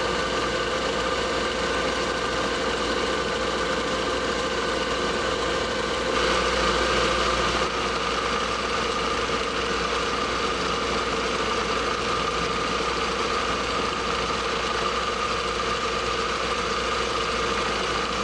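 Machine tool motor running steadily with a constant whine, a little louder for a second or two about six seconds in.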